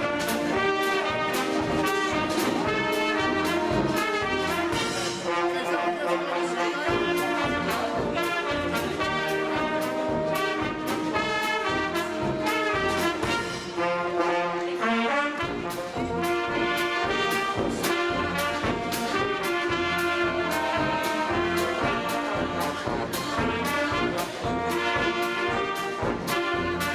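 Music led by brass instruments, with a steady beat throughout.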